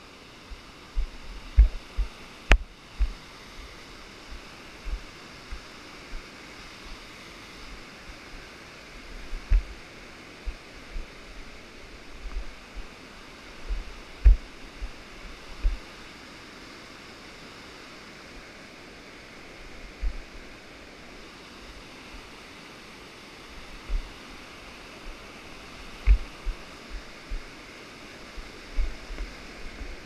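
Steady rush of falling water from a waterfall, under irregular low thumps from footsteps and bumps to a body-worn action camera, with one sharp click about two and a half seconds in.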